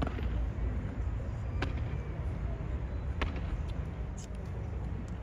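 Evzone guards' hobnailed tsarouchia clogs striking the stone pavement in a slow ceremonial march: three sharp clacks about a second and a half apart, then a few fainter clicks, over a steady low background rumble.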